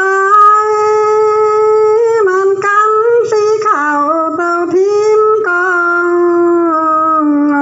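A single high voice singing one long wordless melismatic phrase of a Dao pả dung folk song: a held note that bends and wavers in the middle, then settles a little lower and holds near the end.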